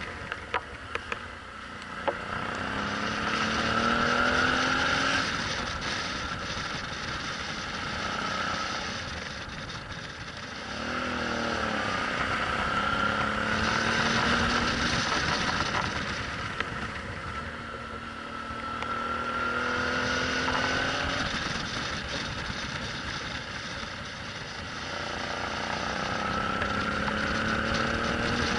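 Suzuki V-Strom 650's V-twin engine pulling hard four times, each time rising in pitch and getting louder before easing off, over steady wind and road noise. A few sharp clicks sound about a second or two in.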